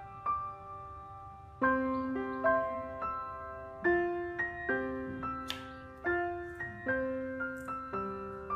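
Background piano music: notes and chords struck one after another, every half second or so, each ringing and fading away.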